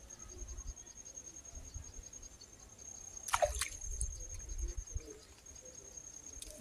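Faint water trickling and dripping at a canal's edge, under a steady high-pitched whine, with a quick falling sweep about halfway through.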